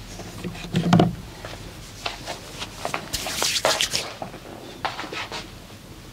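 Hands rubbing and kneading in a massage: irregular strokes of skin and fabric being rubbed, with a soft thump about a second in and a quick run of strokes a little past the middle.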